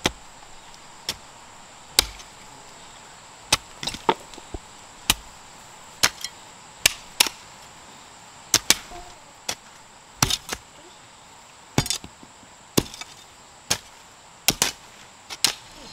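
Hand hoes striking into loose soil: irregular dull chops, about one to two a second, from two people hoeing a garden bed. A steady high thin whine sits in the background.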